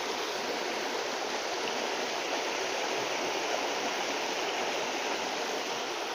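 Shallow rocky river rushing steadily over stones and a small cascade.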